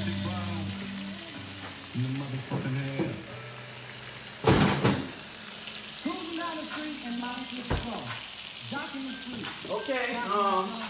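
Blackened salmon and shrimp frying in a cast-iron grill pan, a steady sizzle, with a skillet of vegetables simmering in stock alongside. Music with a singing voice plays faintly underneath, and there is one sharp knock about four and a half seconds in.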